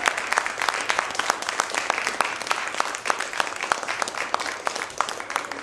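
Audience applauding, many hands clapping; the applause begins to thin out near the end.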